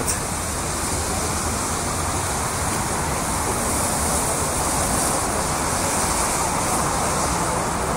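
Steady city street traffic noise: a constant hiss and low rumble of cars driving on wet roads, with no single vehicle standing out.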